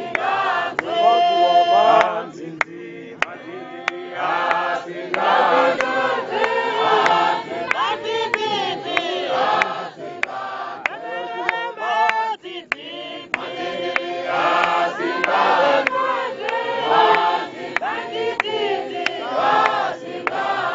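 Large congregation singing a hymn together, men's and women's voices, in phrases that swell and fall back, with scattered sharp clicks.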